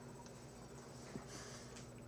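Quiet room tone with a faint steady hum, a single soft click about a second in, and a faint hiss shortly after.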